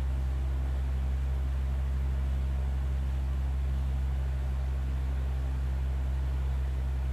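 A blue felt-tip marker colouring on notebook paper, its soft scratching faint under a steady low hum and hiss that holds unchanged.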